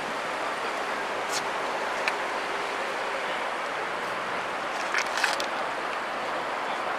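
Steady outdoor street noise, wind and passing traffic, with a few faint clicks about five seconds in.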